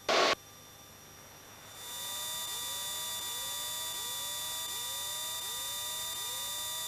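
A brief click as a radio transmission cuts off. About two seconds in, a steady whir with a faint chirp repeating about every 0.7 s sets in. This is the Piper Arrow's cockpit noise on final approach.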